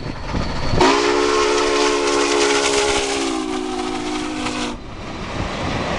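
Union Pacific 844's steam whistle, a chime chord, sounding one long blast of about four seconds that sags slightly in pitch and cuts off sharply. Under it is the hiss and rumble of the passing 4-8-4 steam locomotive.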